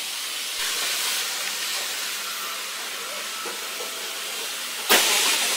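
Steady hiss of model trains running on the layout, with a sharp click about five seconds in, after which it is louder.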